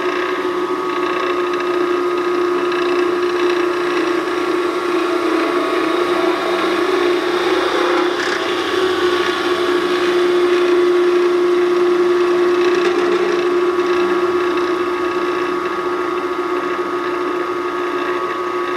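Harbor Freight 34706 (Central Machinery 12 x 36) wood lathe running empty, its 3/4 hp motor and belt drive giving a steady hum with a higher whine over it. It grows a little louder around the middle while the speed lever is worked.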